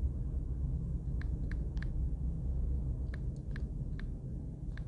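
Light clicks of digits being tapped into a phone's on-screen number keypad, about seven taps at an uneven pace, over a steady low background rumble.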